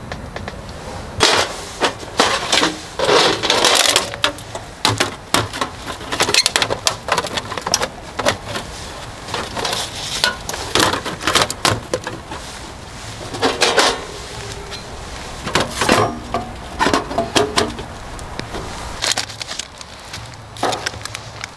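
Irregular clattering knocks, taps and rustling of objects being handled, coming in clusters.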